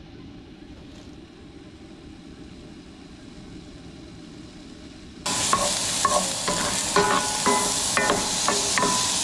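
A low steady hiss, then about five seconds in a sudden loud sizzling of diced chicken frying in a pan, with the scrapes and clicks of a utensil stirring it.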